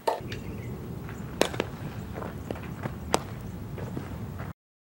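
A softball player's footsteps on infield dirt with a few sharp smacks, two of them loud, over a steady low rumble; the sound cuts off suddenly near the end.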